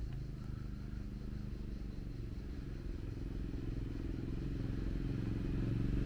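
Engine of a quad bike running as it approaches, a steady low engine note growing louder toward the end.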